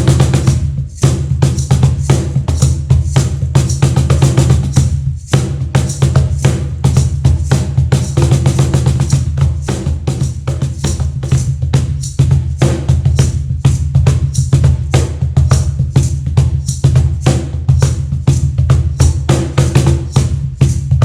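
Meinl cajon played by hand in a fast groove, mixing deep bass strokes with sharp slaps. The playing breaks off briefly about a second in and again around five seconds in.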